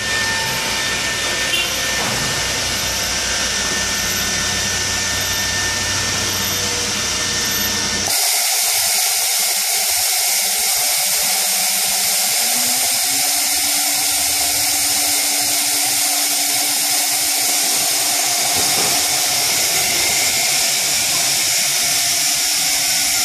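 Thermwood C67 five-axis CNC router running: a steady, high-pitched whine and hiss, with a low rumble underneath that drops away about eight seconds in.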